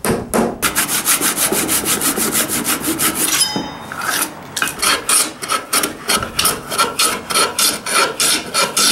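Sanding block rubbed fast back and forth over a glued-in wooden butterfly key and the red oak board around it, working the key flush. About three to four strokes a second, with a brief pause about halfway through.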